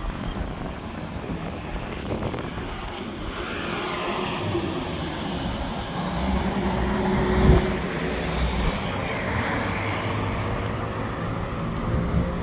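Street traffic: cars passing on a multi-lane road, a steady low rumble of engines and tyres, with a brief thump about halfway through.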